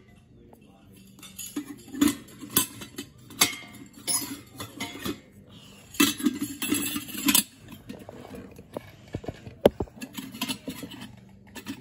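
Metal parts of a camping coffee pot clinking and clattering as they are handled and fitted together: irregular knocks and clinks, with a sharp click near the end.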